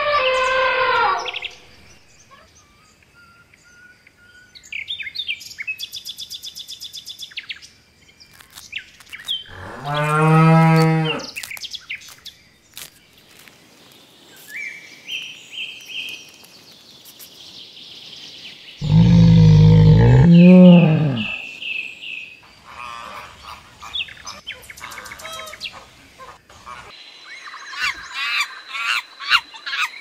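Wild soundscape of long, low animal calls and birdsong: a call fades about a second in, another comes around ten seconds in, and the loudest call comes near the twenty-second mark. Between them birds chirp and trill.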